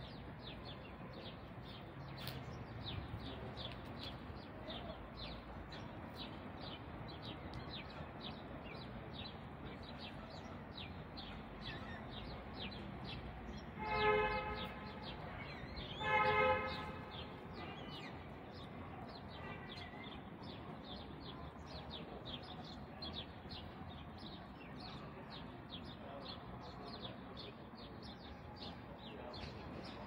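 Small birds chirping continuously, many short high chirps a second. Near the middle, two loud honks about two seconds apart stand out above them.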